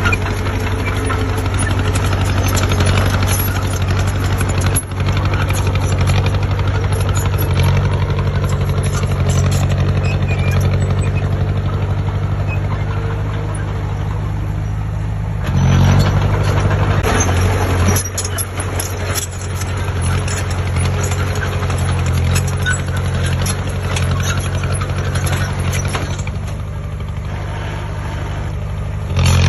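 Heavy diesel engine of earthmoving equipment running steadily, with a louder surge for about two seconds a little past halfway.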